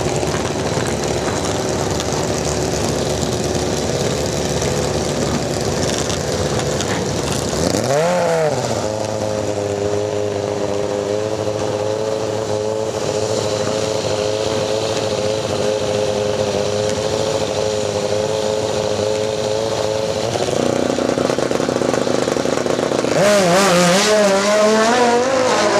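Drag bike engine running at the start line: one quick blip of the throttle, then revs held steady for about ten seconds. The pitch drops, and near the end the engine revs up hard and climbs as the bike launches.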